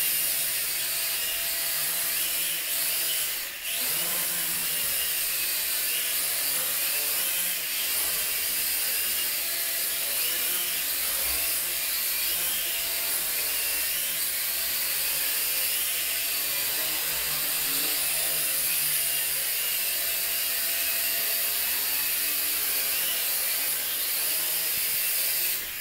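J Perkins Twister toy quadcopter's four small electric motors and propellers whirring in flight, a steady high-pitched buzz whose pitch wavers slightly as the throttle changes, with a brief drop about three and a half seconds in.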